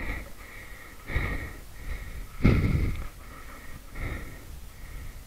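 A motorcycle stuck in deep sand being pushed free: three surges of effort with heavy breathing, as the engine is revved and the rear wheel churns sand.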